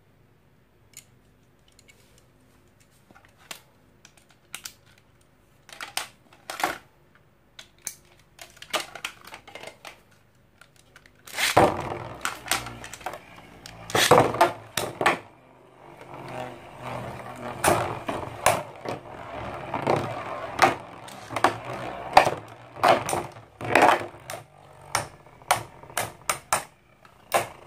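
Scattered clicks of Infinity Nado tops and launchers being handled. About eleven seconds in, the tops are launched into a plastic arena, and the two spin with a steady whir and clash over and over, with many sharp clacks of their battle rings striking.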